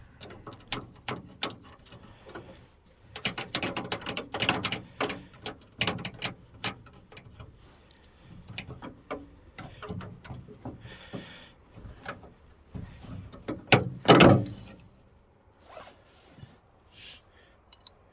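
Socket ratchet clicking in short runs as the 10 mm nuts holding a minivan's exterior door handle are backed off from inside the door, with one louder metallic clunk about fourteen seconds in.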